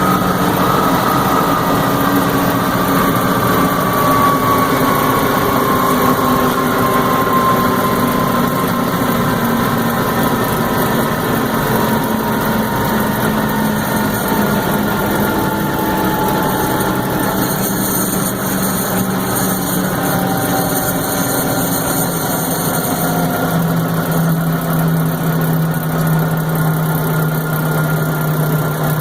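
M925 5-ton military cargo truck's diesel engine running steadily, with a thin whistling tone that slowly falls in pitch over about twenty seconds. This is the odd noise the owner cannot identify.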